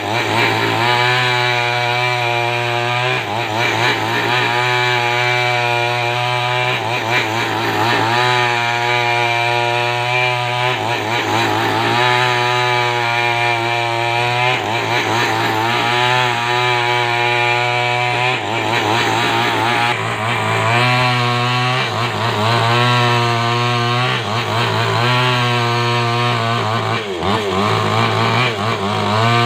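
A chainsaw running under load as it rips a coconut-palm trunk lengthwise into a beam. Its engine note holds steady, then wavers and sags every few seconds as the chain bites into the wood.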